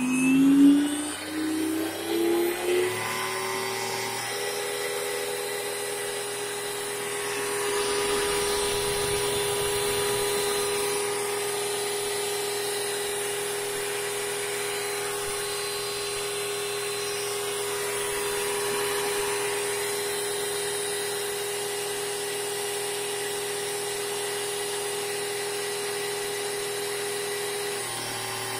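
Graupner Vario electric model-helicopter mechanics running on the bench: the electric motor and gear train spool up in the first few seconds, then run at a steady, even whine.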